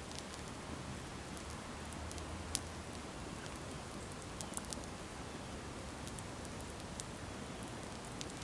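A burning sneaker in open flames: a steady rush of fire with scattered sharp crackles and pops, the loudest pop about two and a half seconds in.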